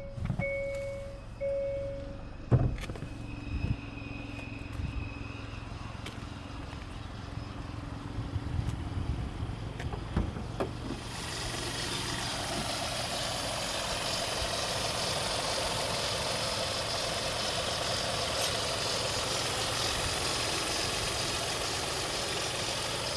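Hyundai i20 N Line's engine running steadily with an even hiss-like whir, the noise the owner questions as a strange engine sound. It settles in about halfway through, after a dashboard chime at the start and a few clicks and knocks.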